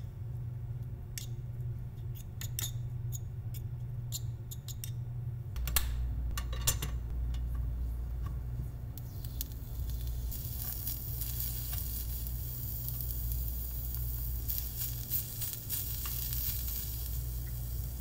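Metal tweezers click and tap against a tiny stainless-steel bowl as spinach namul is tossed. From about ten seconds in comes a steady high sizzle: food frying in a miniature pan on a heated miniature stove, stirred now and then.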